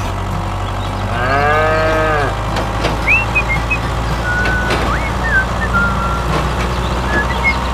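A cow moos once, about a second in, over a steady low hum. Short high chirps follow.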